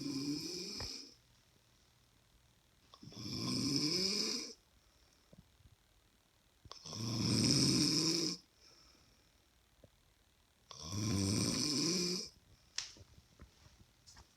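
A woman snoring in her sleep: four snores about three and a half to four seconds apart, each lasting about a second and a half, with quiet breathing gaps between them. A few faint clicks near the end.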